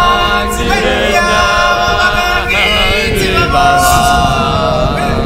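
Choir-like a cappella singing: several voices holding long notes, with sliding pitch changes in between.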